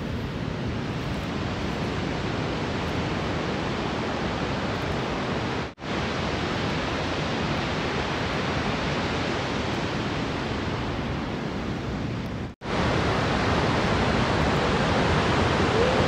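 Steady rushing roar of a tall mountain waterfall, the Vøringsfossen, falling into a misty gorge, mixed with wind. It drops out briefly twice, about 6 and 12.5 seconds in, and is a little louder after the second break.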